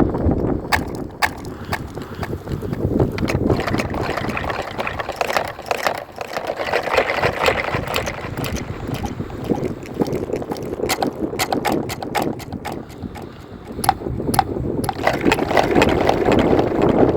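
Water sloshing and gurgling, uneven in level, with many short sharp clicks and drips throughout.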